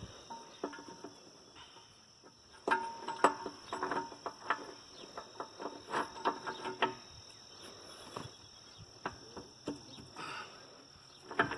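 Metal clanks and clinks of dual-wheel clamps and bolts being handled and fitted against a tractor wheel rim, in irregular bunches, some ringing briefly. A steady high insect buzz, like crickets, runs underneath.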